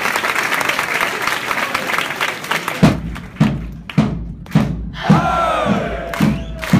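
Football supporters' crowd clapping, then a big drum starts a steady beat about three seconds in, about two beats a second, and a couple of seconds later the crowd starts singing a chant over it.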